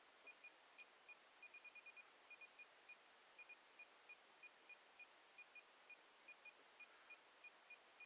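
GQ EMF-390 EMF/RF meter's alarm beeping: faint, short high-pitched beeps in irregular groups of one to five. The beeping is set off by a high electric-field reading on the meter.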